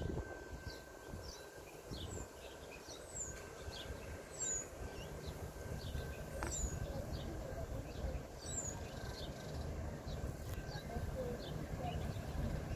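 Small birds chirping over and over with short, high, falling calls. Under them is a low rumble that grows through the second half as a VLocity diesel railcar approaches the station.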